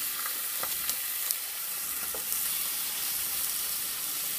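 Bone-in chicken pieces searing in hot canola oil in a heavy stainless steel pot: a steady sizzle. A few faint clicks in the first couple of seconds come as more pieces are laid in.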